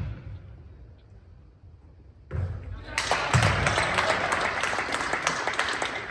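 Spectators break into clapping and cheering about halfway through, after a couple of dull thuds. The applause is a dense patter of claps with voices under it.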